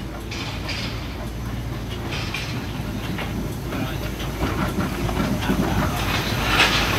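Peckett 0-4-0 tank steam locomotive running slowly in along the platform, a steady low rumble of engine and wheels that grows louder as it draws near, with a hiss of steam, loudest near the end.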